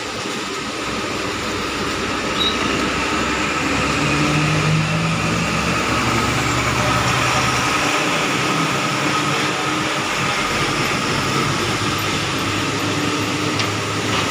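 Coach bus engine running as the bus drives in and turns onto the fuel-station forecourt, its note shifting a few seconds in and then settling to a steady hum, over a constant hiss of tyres on wet pavement.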